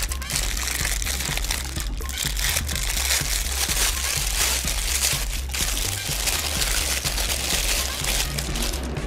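Clear plastic bag crinkling and rustling as it is handled, with a steady low bass beat of background music underneath.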